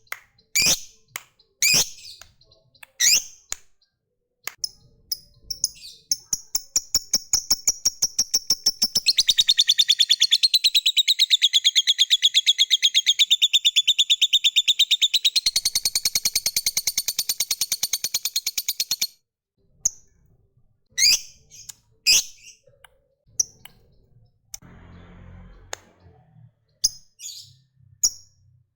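Lovebird chirping, then breaking into a long, rapid chattering trill (the 'ngekek panjang' call) that speeds up, runs for about fourteen seconds and cuts off suddenly, followed by single sharp chirps.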